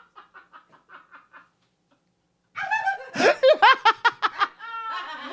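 Laughter: a quiet run of short stifled snickers, then after a brief pause louder laughter breaks out.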